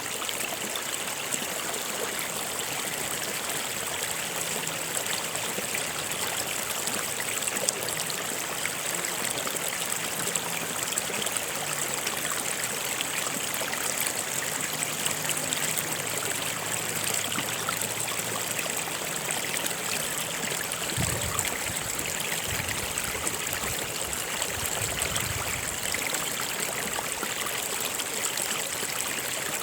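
Stream of water flowing and trickling steadily.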